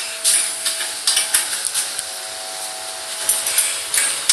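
Scattered metallic clinks, knocks and scraping from hand tools and parts at work on a motorcycle's rear drive-chain area during reassembly.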